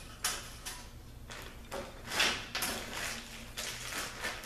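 Handling noises at a workbench: a series of short rustles and scrapes, the loudest about halfway through.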